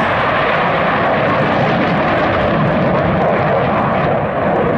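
Steady, loud jet noise from a pair of Dassault Mirage 2000D fighters flying past together, each powered by a single SNECMA M53-P2 afterburning turbofan.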